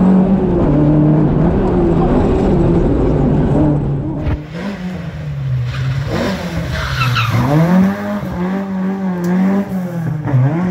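Opel Kadett GTE Group 2 rally car's four-cylinder engine under hard acceleration. It is heard first from inside the car with heavy road rumble, then from the roadside after about four seconds, its pitch rising and falling sharply as the revs change.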